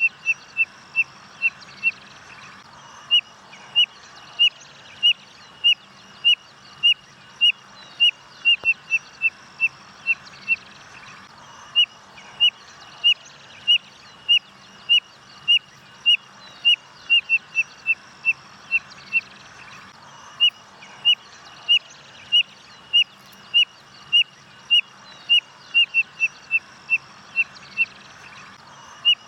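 Spotted nothura (codorna-amarela) calling: a long series of short, sharp, whistled notes, about one to two a second, with quicker runs of falling notes breaking in three times.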